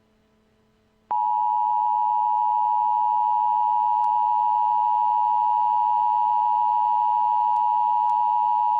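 Emergency Alert System attention signal: a steady electronic alert tone that switches on about a second in and holds unchanged, announcing the next tornado warning.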